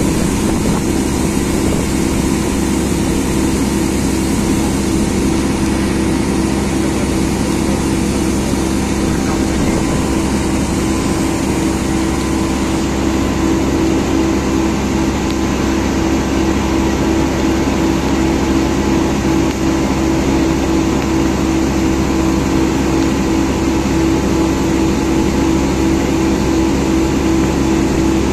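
Engine of a passenger motor boat running steadily at cruising speed: a constant loud drone with an unchanging hum, over a steady hiss.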